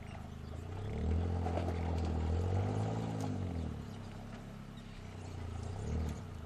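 Suzuki Jimny JA11's small three-cylinder engine pulling the 4x4 at crawling speed over a rocky dirt mound. The revs rise about a second in, swell and then fall back to a low, steady note, with a short blip of throttle near the end.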